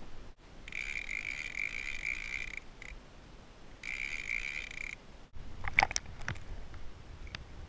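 Fishing reel drag buzzing as line pays out, in two spells of about two seconds and one second. After a cut, the camera is underwater: a low water rumble with scattered clicks and pops.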